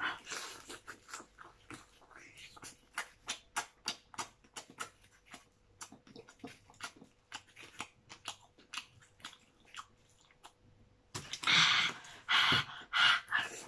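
Close-up eating of crab: wet chewing and lip smacks, with short sharp clicks of crab shell being picked apart by hand. About eleven seconds in, a few loud, rough mouth noises come from the eater in quick succession.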